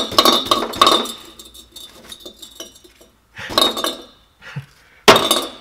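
Catalytic converter being shaken by hand, its broken-up core rattling and clinking loosely inside the shell in several bursts: the converter is kaput on the inside.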